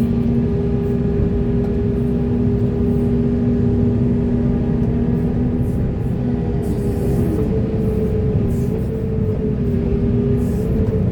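Large hydraulic excavator's diesel engine running steadily under load, with a steady hydraulic whine that slides in pitch about halfway through.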